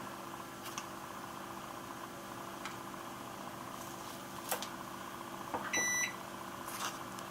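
Washing machine running with a steady hum, giving one short electronic beep about six seconds in; a few light clicks sound over it.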